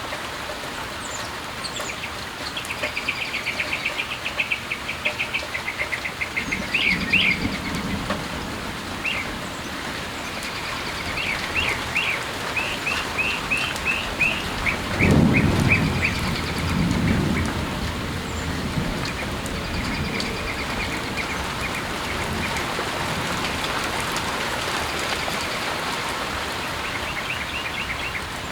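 Steady rain with birds chirping in quick repeated runs. About halfway through, a low rumble of thunder swells and fades over a few seconds.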